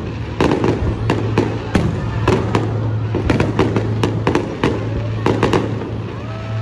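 Aerial fireworks display: a rapid, irregular string of sharp bangs and cracks, several a second, over a steady low hum.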